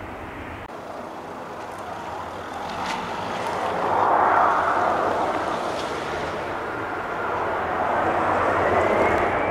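Turbofan jet engines of taxiing airliners, the Antonov An-225 and Lufthansa jets passing close by, giving a steady rumble and hiss. It swells about four seconds in and again near the end, with a faint rising whine near the end.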